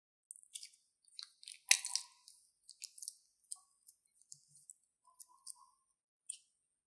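A plastic piping bag of green slime mixture being squeezed and worked: a run of small sticky clicks and crackles, the loudest cluster about two seconds in.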